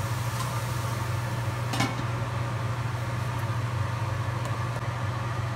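Covered wok of grated radish and carrot cooking on a gas burner: an even hiss over a steady low hum, with one light click about two seconds in.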